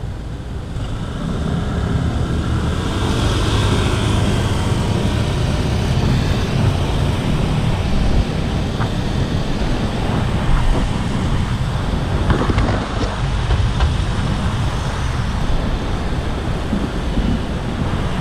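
Steady wind rumble on a GoPro's microphone while riding a bicycle, with road traffic noise from the city street around it.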